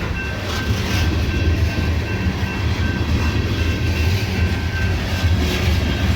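Loaded CSX coal train rolling past, a steady low rumble of its cars' wheels on the rails, with faint steady high tones above it.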